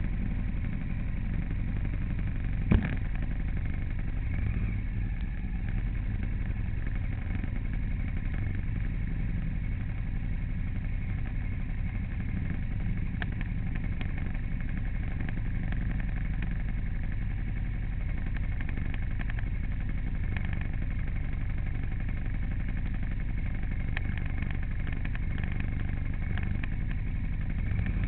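A vehicle engine, likely a motorcycle, runs steadily with road rumble while travelling. A single sharp knock comes about three seconds in.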